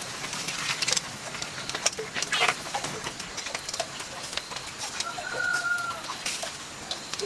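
A bird calling once, a drawn-out call held for about a second about five seconds in, over scattered clicks and rustling.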